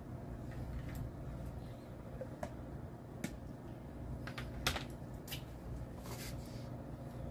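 Scattered light plastic clicks and taps, several bunched together in the middle, as the lid comes off a Tupperware chopper and a spatula scrapes and knocks inside its plastic bowl. A low steady hum lies underneath.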